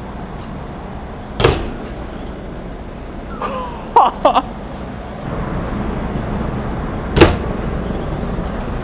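BMX bike ridden at a street obstacle: steady rolling noise broken by sharp knocks. One hit comes about a second and a half in, a quick rattle of three knocks with short squeaks follows around four seconds, and the loudest impact comes about seven seconds in.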